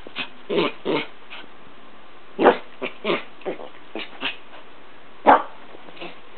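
Dog making a string of about a dozen short, uneven barks, the two loudest about two and a half and five seconds in.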